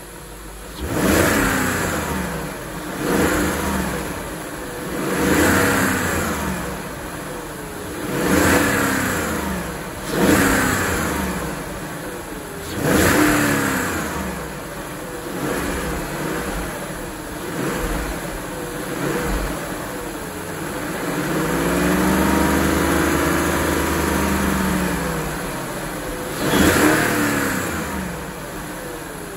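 BMW E38 740i's 4.4-litre V8 revved in repeated short blips, about six in the first half, then held at raised revs for a few seconds and blipped once more near the end, falling back to idle between each.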